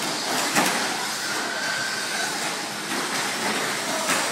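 Radio-controlled short-course trucks racing: a steady mix of motor and tyre noise, with a sharp knock about half a second in and another near the end.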